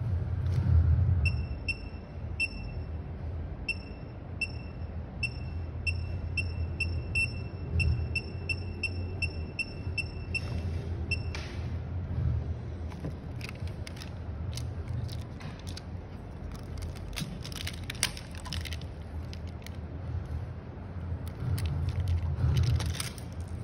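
A run of more than twenty short, high electronic beeps at uneven spacing, about two a second, from a phone-screen tester responding to fingers tapping the screen's touch panel; they stop about eleven seconds in. Light handling clicks and scrapes follow as the screen and its flex cable are handled, over a steady low hum.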